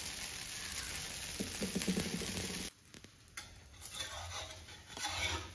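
Uthappam sizzling on a hot dosa griddle, a steady frying hiss. It cuts off abruptly about two and a half seconds in, leaving quieter kitchen sounds.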